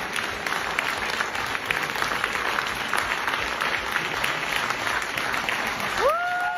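Theatre audience applauding a curtain call, a dense steady clapping. About six seconds in, music starts with a held note that slides up and then holds.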